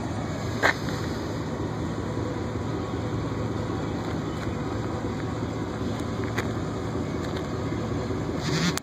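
Pickup truck engine idling steadily with a low, even hum, a few faint clicks over it.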